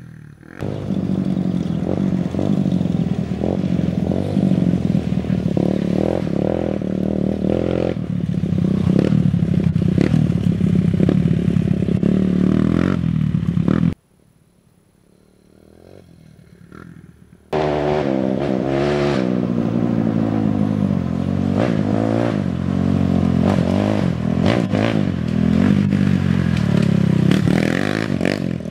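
Dirt bike engine running hard close to the microphone, revving up and down, with rattling and scraping over it. It cuts off abruptly about halfway through and comes back just as loud a few seconds later.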